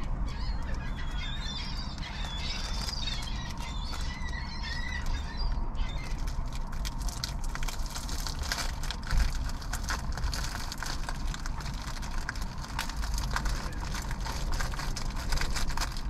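A flock of gulls calling, with wavering high calls during the first six seconds or so, over a steady low rumble. After the calls fade, dense crackling clicks fill the rest.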